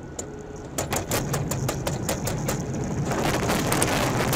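Road noise in a car driving close beside a truck on a wet road. About a second in comes a fast run of sharp clicks, about six a second, lasting some two seconds, then a dense rush of noise that grows louder.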